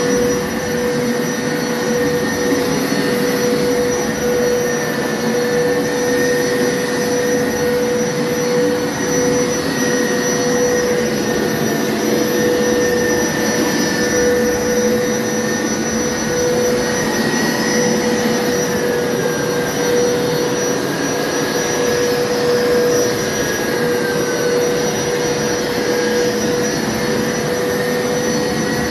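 Hoover carpet cleaner running without a break: a loud, steady motor whine over a rushing hum, with a fainter higher tone that wavers slightly.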